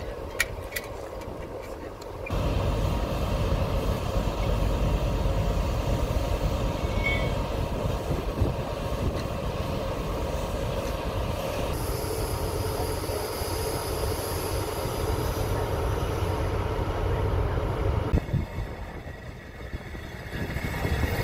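Diesel-electric locomotive running close by: a steady low rumble that starts suddenly a couple of seconds in, with a high-pitched whine over it in the second half. Near the end, freight wagons roll past on the rails.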